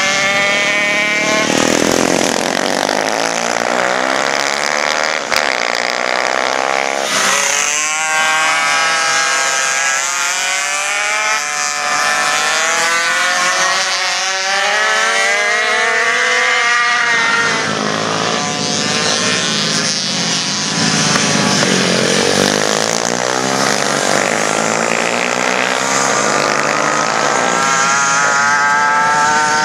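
Several pocket bike engines racing: a high, buzzing engine note from more than one small engine at once, its pitch rising and falling over and over as the bikes lean through the corners and accelerate away.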